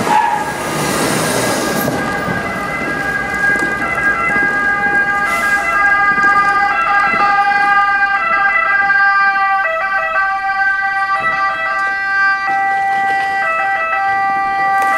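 Two-tone sirens of fire-service vehicles sounding steadily, each stepping back and forth between two pitches, with more than one siren overlapping from about halfway through. A rush of passing-vehicle noise is heard in the first couple of seconds.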